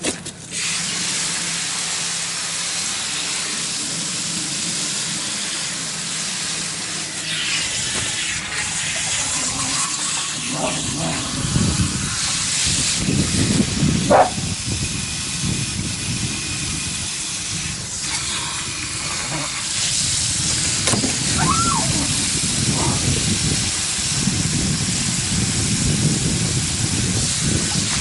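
Water hissing steadily from a garden hose spray nozzle as carp are rinsed clean over a metal tub. Splashing from the fish being handled in the water grows heavier from about ten seconds in.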